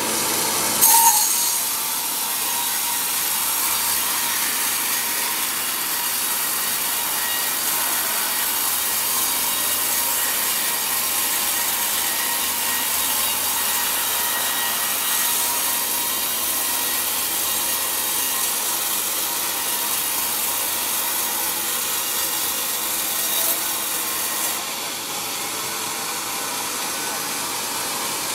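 Sawmill band saw cutting lengthwise through a large log as the carriage feeds it past the blade, a steady high-pitched rasping hiss. A short loud knock comes about a second in, and the high hiss drops away near the end.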